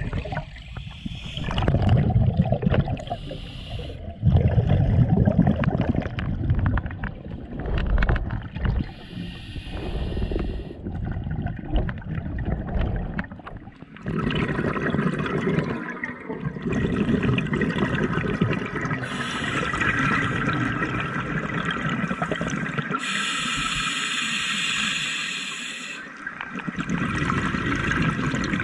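Scuba regulator breathing heard underwater: exhaled bubbles gushing and gurgling in bursts every second or two, turning into a steadier bubbling rush with hiss about halfway through.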